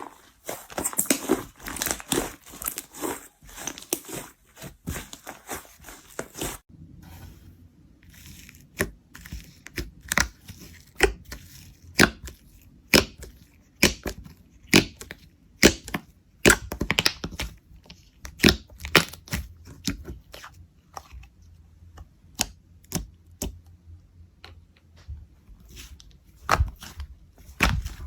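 Slime being pressed and stretched by hand: dense sticky crackling at first, then, after about six seconds, a run of separate sharp clicks and pops.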